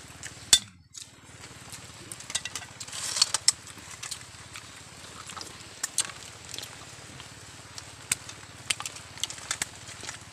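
Scattered sharp clicks and clinks of sea snail shells knocking against a metal bowl and plates as they are picked out by hand, the loudest about half a second in and a small cluster around three seconds.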